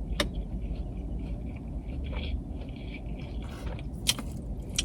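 A person chewing food, with a few sharp mouth clicks and smacks, over a low steady hum.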